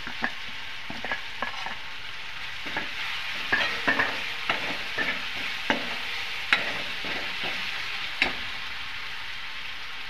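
Masala sizzling steadily in hot oil in a metal kadhai while a steel ladle stirs it, scraping and knocking against the pan in quick clicks. The clicks come thickest in the middle and stop shortly before the end, leaving only the sizzle.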